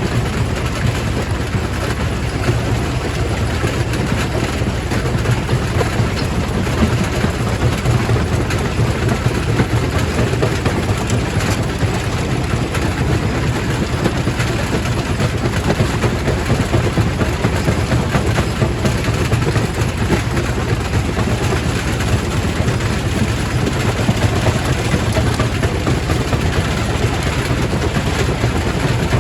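Quarry primary rock crusher running, a steady heavy rumble with a dense grinding noise of stone being crushed.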